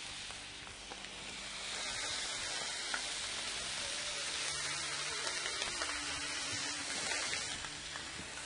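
Thin chicken fillet sizzling on a hot electric grill plate: a steady frying hiss that grows louder about two seconds in and eases a little near the end.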